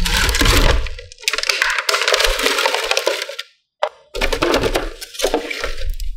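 Cardboard box and plastic packaging crackling and scraping as a toy is slid out and handled. It comes in two stretches, with a brief pause a little past halfway.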